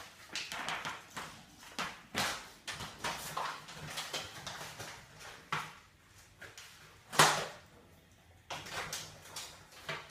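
Capuchin monkeys rummaging with their hands through a plastic bowl of dry biscuits, chopped fruit and vegetables: repeated rustling, scraping and clattering of food pieces, with one sharp, louder knock a little after halfway.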